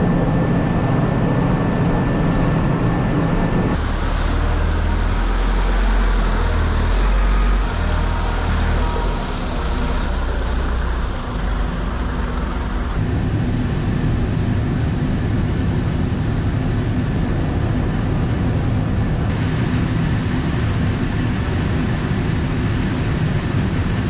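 Grain dryer fans running steadily, then a Sanderson telehandler's diesel engine working, its low rumble rising and falling, then the steady run of the grain dryer plant.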